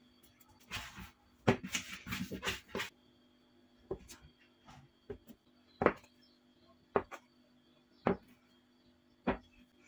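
A metal bench scraper chopping down through bread dough onto a wooden work surface: five sharp knocks roughly a second apart as the dough is cut into pieces. These follow a couple of seconds of rustling and scraping from hands working on the floured board.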